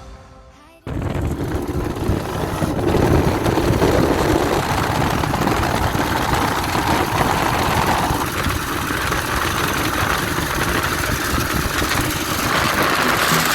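Kawasaki KDX 200's single-cylinder two-stroke engine running, cutting in suddenly about a second in and then holding steady.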